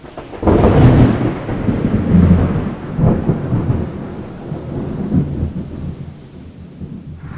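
A loud thunderclap about half a second in, rolling on in several deep waves and dying away over the next six seconds.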